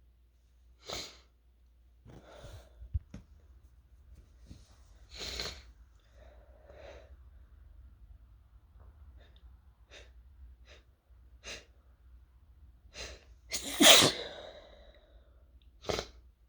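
A person sneezing over and over, set off by fumes from toasted chili peppers. Most sneezes are short, stifled bursts, with one much louder full sneeze about fourteen seconds in and another just before the end.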